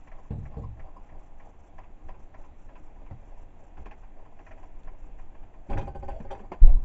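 Small benchtop milling machine's table being wound across by hand on its handwheel: a run of light, irregular mechanical ticks, about three a second. A heavy thump near the end is the loudest sound.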